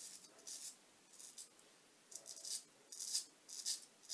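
Straight razor shaving lathered stubble on the neck: a series of about six short scraping strokes, each cutting through the whiskers.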